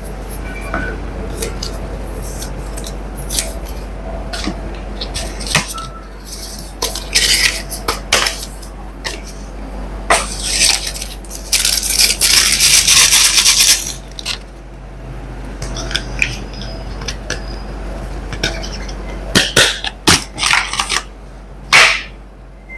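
Hands unboxing a smartphone and its box: scattered light taps, clicks and clatter of hard packaging and parts, with several hissing rustles of packaging sliding or scraping. The longest rustle comes about twelve to fourteen seconds in.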